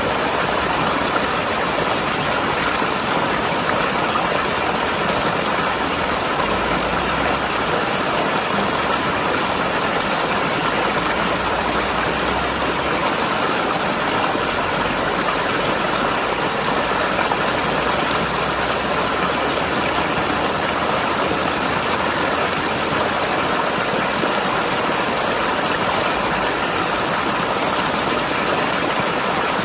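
Mountain river rushing and gurgling over rocks: a steady, even noise of flowing water.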